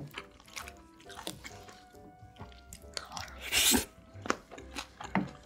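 Close-miked chewing and eating of rice with raw marinated crab, with scattered crunches and clicks and one loud noisy burst about three and a half seconds in. Soft background music plays underneath.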